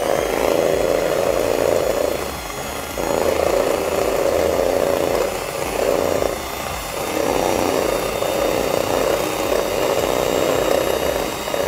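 Scarlett 180 W electric hand mixer running on a low speed setting (one or two), its chrome beaters whisking eggs in a plastic bowl. The steady motor whir dips briefly three times as the beaters move through the bowl.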